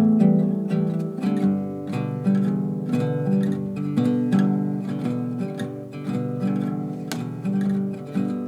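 Score music on acoustic guitar: plucked and strummed chords, a new one about every half second, each ringing out.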